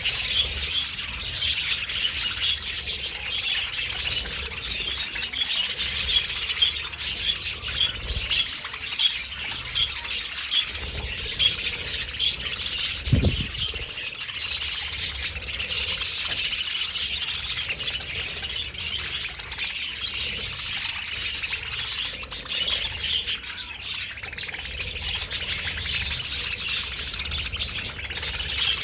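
Budgies chirping continuously, many short high chirps overlapping, with a brief low thud about halfway through.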